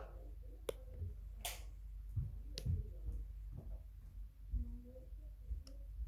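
Handling noises: a handful of sharp clicks and soft knocks spread out, with a brief rustle about one and a half seconds in.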